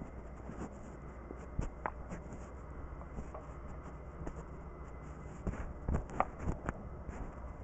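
Handling noise: clothing rubbing over a body-worn microphone, with scattered clicks and knocks from a camera and a telescoping aluminium tripod being opened, the sharpest run of them in the last couple of seconds. A steady low hum lies underneath.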